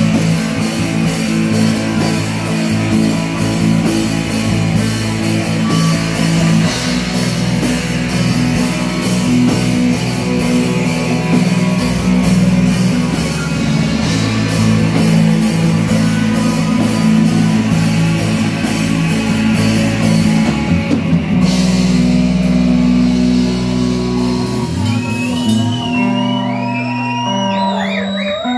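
Live heavy metal band playing loud: distorted electric guitars, bass and drum kit. About three-quarters of the way through the drums stop and a chord is left ringing. Near the end, high squealing tones glide up and down.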